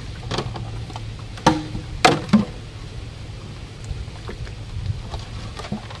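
A small boat being paddled, with a steady low rumble and a few sharp knocks against the boat, the loudest about one and a half to two and a half seconds in.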